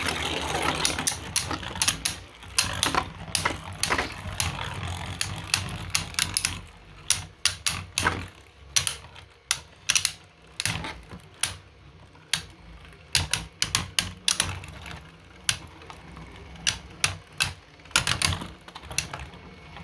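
3D-printed Beyblade spinning tops battling in a stadium: a fast, irregular run of sharp plastic clicks and knocks as they strike each other and the walls, over a low spinning whir that fades about halfway through as the tops lose speed.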